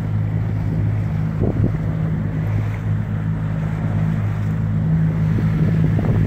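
Outboard motor of an inflatable boat running at a steady speed, with water rushing along the hull and wind buffeting the microphone.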